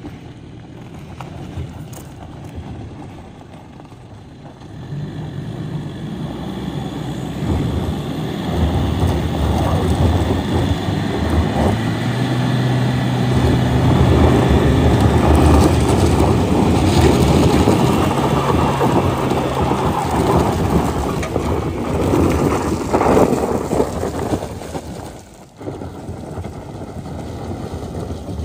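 Toyota Innova climbing a loose gravel and dirt track fully loaded with passengers, its engine working hard under load while the tyres crunch and scrabble on the stones. It grows louder as the vehicle approaches and is loudest through the middle. Near the end it drops briefly, then carries on as the vehicle pulls away.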